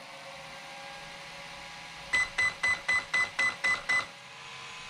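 Traxxas X-Maxx's electronic speed controller powered up and beeping: eight short, high, evenly spaced beeps at about four a second, starting about two seconds in, over a steady electrical hum.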